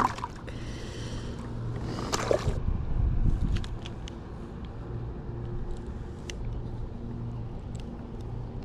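Water sloshing and splashing against a fishing kayak, loudest in the first couple of seconds, then small scattered clicks and knocks over a steady low hum.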